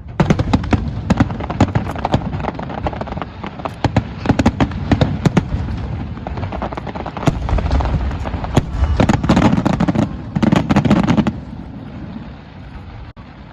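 Fireworks display going off in a dense run of rapid cracks and booms over a low rumble. It starts abruptly and thins out about eleven seconds in to a quieter rumble.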